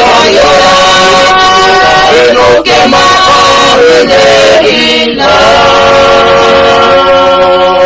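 A family of men, women and children singing a hymn together in parts, voices only, with held notes that change together; about five seconds in they settle on one long sustained closing chord.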